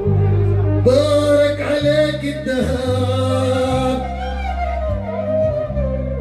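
Male singer singing an Arabic song live through a microphone over band accompaniment with a bass line. He holds long, wavering notes without clear words.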